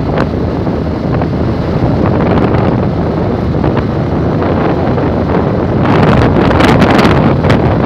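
Wind buffeting a microphone on a moving motorcycle at road speed, with road and machine noise underneath; the wind grows louder about six seconds in.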